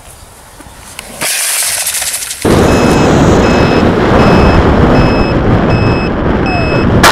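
Loud rumbling wind and rolling noise on the onboard camera of a model airplane near the ground. It cuts in abruptly about two and a half seconds in, with a steady high beep repeating about twice a second. Before it there is a quieter stretch with a high hiss.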